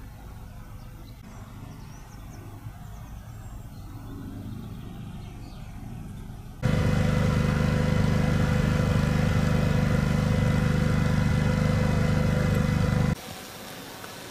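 A low steady rumble, then a loud engine running at a steady pitch that starts abruptly about six and a half seconds in and cuts off just as abruptly near the end.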